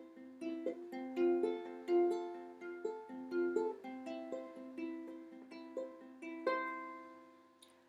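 Ukulele played alone, fingerpicked single notes ringing over a repeated low note. A last note about six and a half seconds in is left to fade out.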